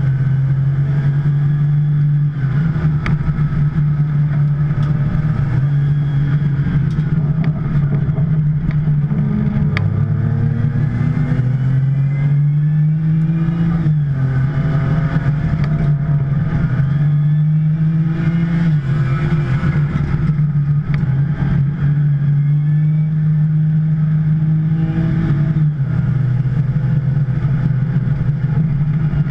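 2010 Porsche 911 Turbo's twin-turbo flat-six running hard at race pace. Its pitch climbs under acceleration and drops back several times with the gear changes and braking.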